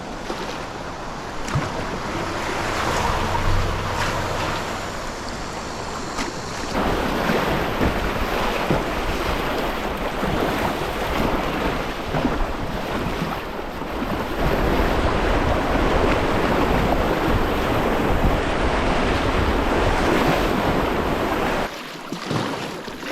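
River rapids rushing around a kayak, with wind buffeting the microphone. The water noise grows louder about seven seconds in and drops off abruptly near the end.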